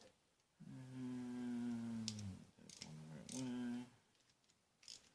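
A man's voice humming or holding a drawn-out wordless tone at one steady pitch, nearly two seconds the first time, then twice more briefly. A few sharp clicks of metal tool parts fall in between.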